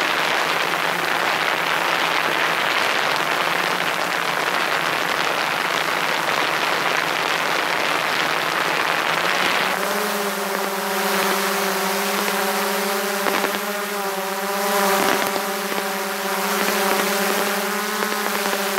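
DJI Mavic 2 Pro quadcopter's propellers and motors, picked up by a camera mounted on the drone itself. It is a loud, even rushing noise that, about ten seconds in, settles into a steady buzzing hum with a clear pitch.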